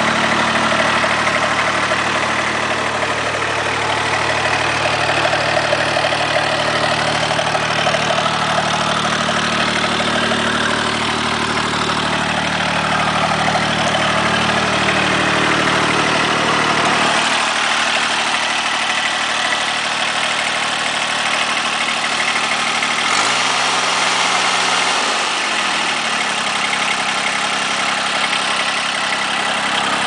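Diesel engine of a Simplicity Legacy XL compact loader-backhoe tractor running steadily at idle. About three-quarters of the way through, its pitch rises briefly and falls back, as the engine is revved for a moment.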